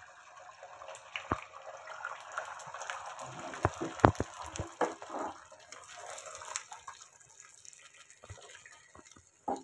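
Beaten egg sizzling as it fries in hot oil in a nonstick frying pan, with scattered crackles and pops. The sizzle thins out over the last couple of seconds.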